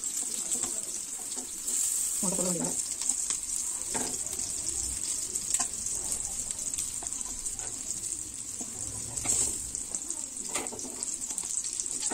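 Oil sizzling steadily in a frying pan of chicken tikka pieces, with a few light clicks of metal tongs.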